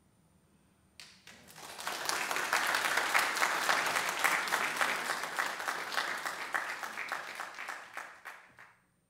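Congregation applauding: the clapping starts suddenly about a second in, swells within a second, and dies away near the end.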